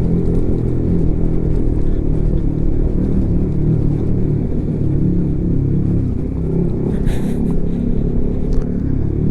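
Honda CB150X motorcycle's single-cylinder engine running at low speed on a rough, unpaved mountain road. Its pitch rises and falls a little over a low rumble, with a brief hiss about seven seconds in.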